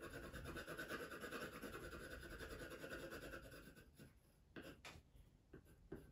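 Coloured pencil shading on paper: quick back-and-forth scratching strokes as a dark blue pencil colours in an area, faint, steady for about four seconds, then a few short separate strokes near the end.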